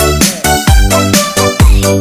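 Electronic dance music with a steady kick drum about twice a second and synth chords.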